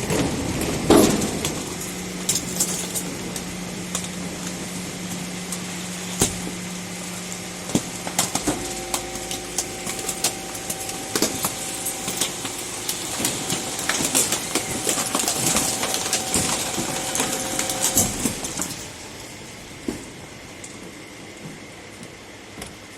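Garbage truck at work: a steady mechanical hum and whine with repeated metal and glassy clanks and knocks of refuse being handled. The hum changes to a higher whine about eight seconds in, and everything quietens near the end.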